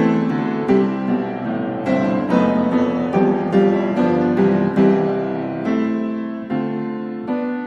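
Background piano music: a steady run of struck notes, a few a second, each fading away.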